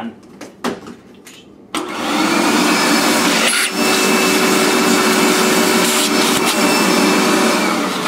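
Shop vac switched on about two seconds in, its motor running with a steady whine over the rush of air.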